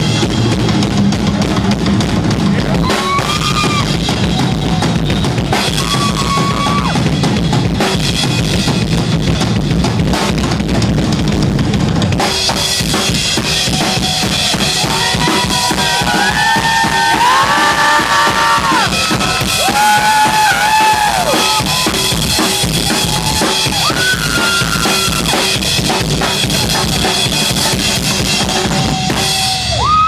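Drum solo on a full rock drum kit: fast, continuous playing on the bass drum, snare and cymbals. From about halfway, high gliding voices whoop over the drumming.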